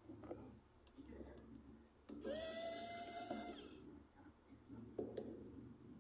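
A small motor whirs briefly, a steady whine with hiss lasting about a second and a half, amid faint handling clicks.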